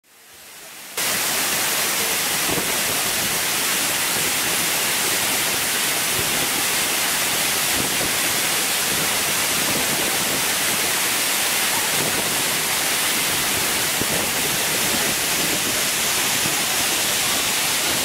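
Waterfall: river water pouring over rock ledges into a pool, a steady rushing noise. It fades in from silence and jumps to full level about a second in.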